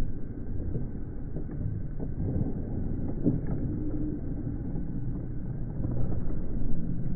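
Muffled low rumble of wind and movement noise on a body-worn camera, with a few faint knocks.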